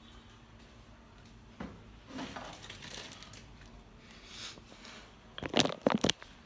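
Rustling and handling of household objects, with a cluster of sharp knocks and clatters near the end, the loudest part.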